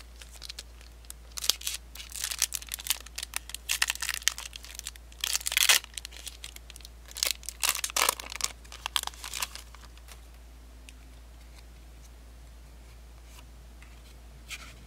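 Foil wrapper of a Pokémon trading card booster pack being torn open and crinkled: dense sharp crackling for several seconds, then only faint handling sounds, with one more brief crinkle near the end.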